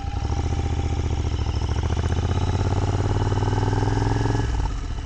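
Royal Enfield motorcycle engine running steadily at low road speed. The engine note drops away about four and a half seconds in as the throttle is closed and the bike slows toward idle.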